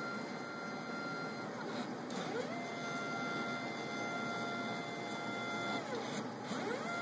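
Stepper motors of a mUVe 1 resin 3D printer whining as its axes move during a print. The pitch rises as a move speeds up, holds steady, then falls as it slows, and this happens a couple of times.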